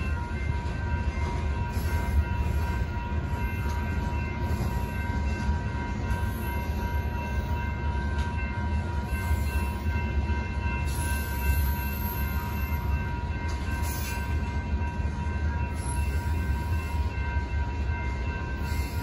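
Freight cars of a BNSF manifest train rolling steadily through a grade crossing, a heavy low rumble of wheels on rail, with the crossing bells ringing over it.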